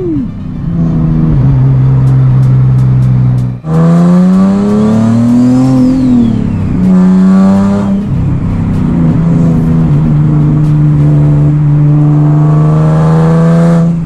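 Single-turbo Nissan 370Z's 3.7-litre V6 under acceleration, heard from inside the cabin. The engine note climbs and drops with gear changes, about a few seconds in and again near the middle, then holds a steady drone for the last several seconds.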